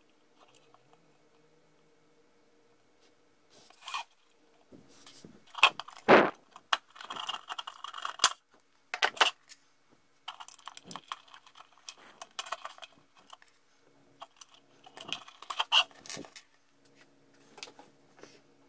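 Small plastic and metal linkage parts handled by fingers: scattered clicks, taps and short light scrapes as a length adjuster is fitted onto a servo pushrod, loudest about six seconds in and again about fifteen seconds in.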